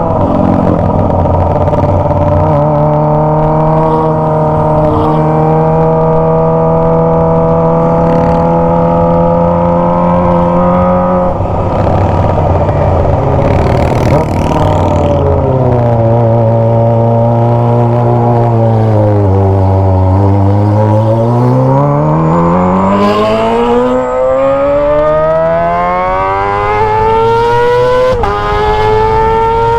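Kawasaki ZX-25R's 250 cc inline-four through an aftermarket Toce exhaust, under way: it holds steady revs for about eleven seconds, the pitch falls as the revs drop off, then it revs up steadily, with a gear change near the end and the climb carrying on.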